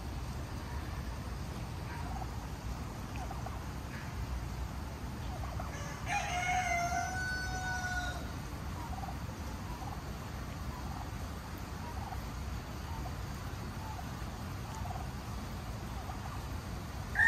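A domestic fowl gives one long, drawn-out call about six seconds in that falls in pitch at the end, over a steady low rumble.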